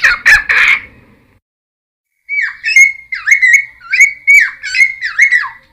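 Cucak timor (helmeted friarbird) in full song: a run of loud, rapid, squawky repeated notes that stops about a second in, then after a pause of about a second and a half a second phrase of about seven repeated downward-slurring notes.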